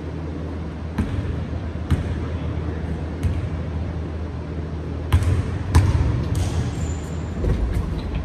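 Basketball bouncing on a hardwood gym floor: a few single dribbles a second or so apart, then harder bounces and short rubber sneaker squeaks in the second half as a player drives and shoots. A steady low hum runs underneath.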